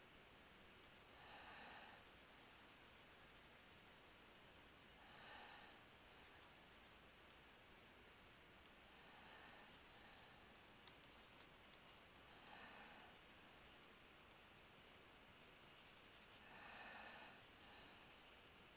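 Near silence: faint room hiss with a soft swell about every four seconds and a few small clicks a little past the middle.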